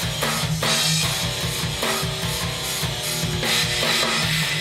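Rock music: electric guitar chords over a drum beat.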